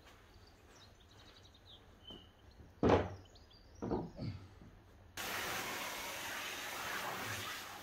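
A plastic van front grille set down on block paving with a thunk about three seconds in, followed by a couple of lighter knocks. From about five seconds in, a garden hose nozzle sprays water with a steady hiss.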